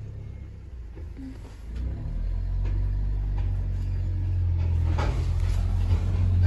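Low rumble of a vehicle that grows louder about two seconds in, with scattered light knocks and rattles.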